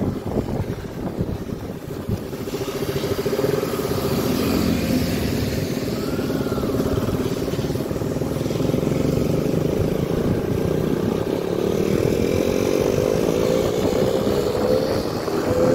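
Motorcycle engine running while riding along, its pitch rising steadily over the last few seconds as it speeds up.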